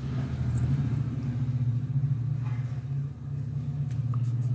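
An engine running steadily, a low hum that drops away right at the end.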